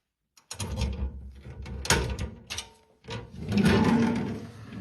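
Clicks and rattles of a collector's display cabinet being unlocked and its door opened, with low rumbling handling noise. There are sharp clicks about two seconds in and a longer rattling stretch near the end.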